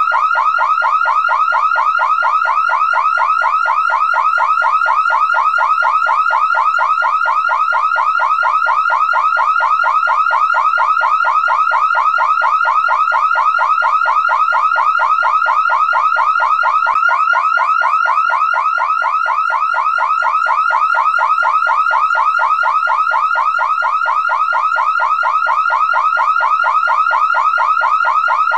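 Car alarm siren going off continuously: a rapid, evenly repeating warble of short sweeping tones, several a second.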